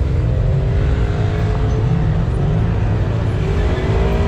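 Off-road 4x4 vehicle driving on a dirt trail: its engine running over a heavy low rumble, with the engine's pitch drifting slightly up and down.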